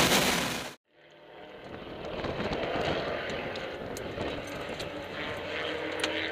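Radical SR3 race car at speed, its engine and wind noise loud on the helmet microphone, cutting off abruptly within the first second. After a brief silence the car's engine is heard running quietly at low revs, with a few light clicks.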